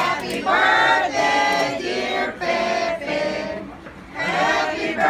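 A group of people singing a birthday song together, in sung phrases with short breaks between them.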